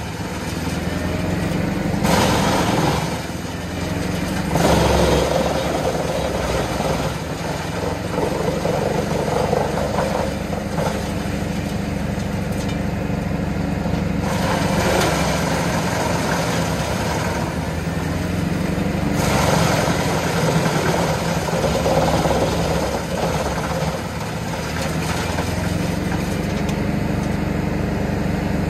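Junkkari HJ500 tractor-driven wood chipper running off a Valtra T190 tractor's six-cylinder diesel, the engine holding a steady note under load. Several louder, harsher stretches come as logs are fed through and chipped.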